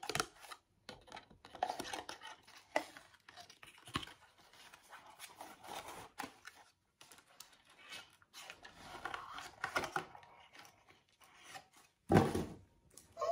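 A perfume box being opened by hand: irregular tearing, rubbing and scraping of its packaging, with a louder burst of handling about twelve seconds in.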